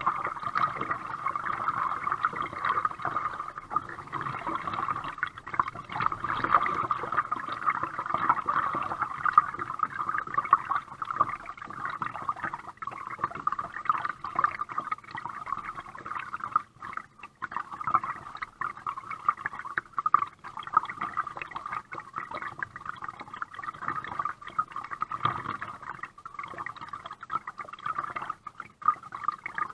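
Water trickling and gurgling around a kayak as it is paddled, a continuous wavering wash with no steady rhythm.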